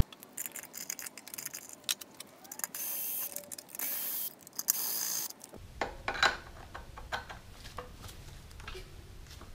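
Screwdriver working screws out of an air compressor's plastic shroud: scattered small clicks and taps of metal on screw and plastic, with two longer scraping sounds about three and four to five seconds in.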